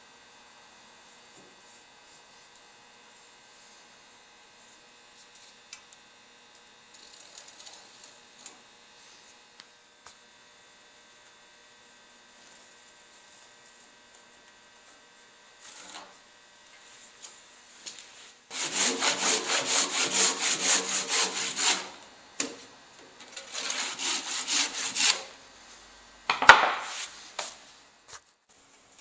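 A hand tool worked over a rough-sawn timber beam in quick back-and-forth strokes, about three a second, in two runs of a few seconds each, followed by one sharp knock against the wood.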